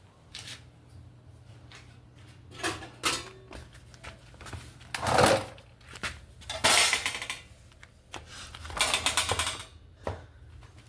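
Metal trays being handled and knocked together: several separate clattering, scraping bursts, ending in a quick rattle about nine seconds in.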